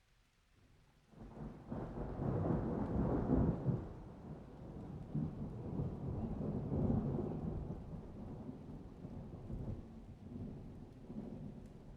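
Rolling thunder: a long low rumble that starts about a second in, swells loudest over the next few seconds, then rolls on in weaker waves.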